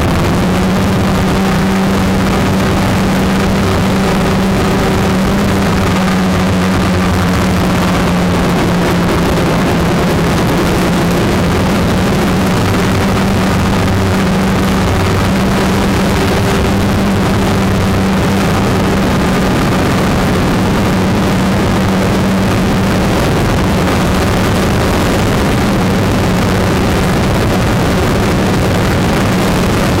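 Motors and propellers of a small camera drone, heard from the drone's own camera: a loud, steady hum holding one pitch over a rush of noise.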